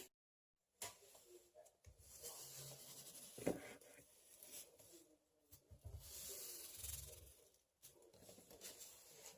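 Faint rubbing strokes of a foam paint brush working paint onto a wooden dresser, with one short sharp tap about three and a half seconds in.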